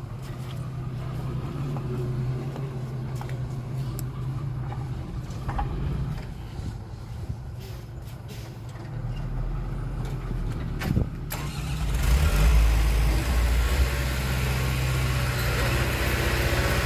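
Heavy construction-vehicle diesel engine running with a steady low hum. About twelve seconds in, just after a single knock, it grows louder, with a deep rumble and more noise, and stays there.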